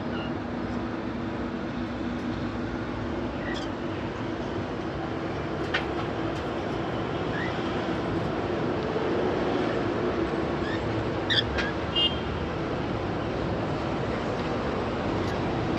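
Steady background traffic noise with a few short, high chirps from grey cockatiels scattered through it, including a brief trill about twelve seconds in.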